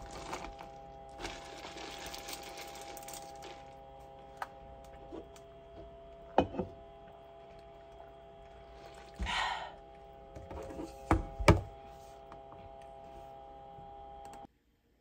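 Several dull thunks and brief rustling handling noises over a steady held background tone, which cuts off suddenly near the end.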